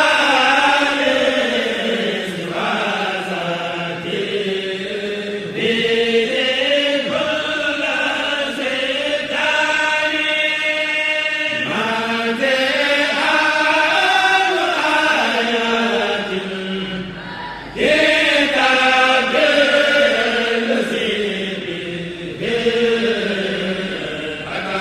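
Voices chanting an Arabic xassida poem in the Senegalese Mouride style. The chant runs in long, sliding melodic lines, with brief breaks between verses.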